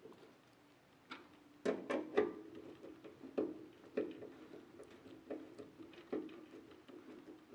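Screwdriver driving 6-32 hex screws through the PC case into the power supply: irregular small clicks and knocks of metal on metal, the loudest few about two seconds in.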